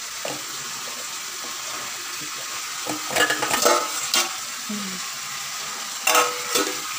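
Stainless steel bowls and utensils clinking against each other a few times, about three to four seconds in and again about six seconds in, over a steady kitchen hiss.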